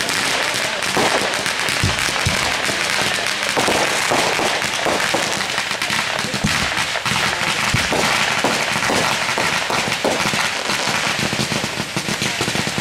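Fireworks going off: a dense, continuous rapid crackling and popping.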